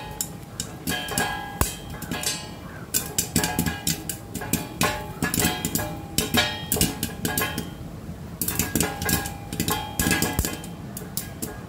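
Popcorn popping in a pan covered with a steel plate: dense, irregular sharp pops as kernels burst and strike the metal plate, which rings briefly.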